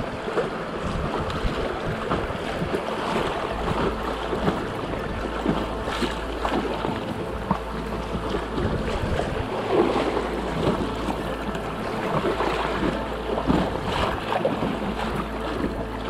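Water splashing and lapping against a packraft as it is paddled, with irregular small splashes from the paddle strokes. Wind rumbles on the microphone at times.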